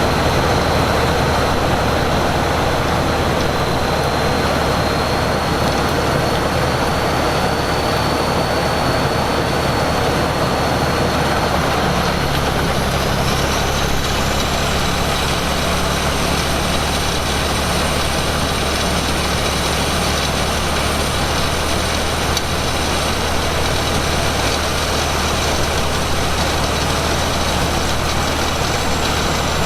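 Large diesel engine of a truck-mounted wood chipper running steadily, with a high whine over it and a second whine rising about halfway through.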